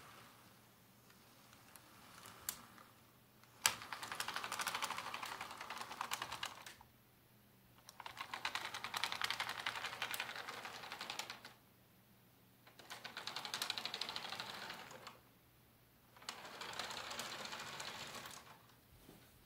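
Model train rolling along its track, wheels clicking rapidly over the rails as the cars pass close by. The clicking swells up and fades away four times, with a single sharp click just before the first swell.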